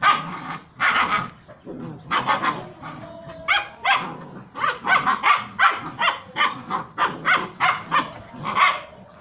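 German shepherd puppies barking and yapping in quick short bursts, about two a second, during rough play-fighting.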